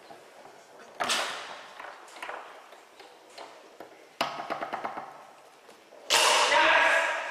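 Tornado foosball table in play: sharp knocks of the ball and rods against the table, a quick rattle of clicks just after the second knock, and a louder, longer clatter near the end.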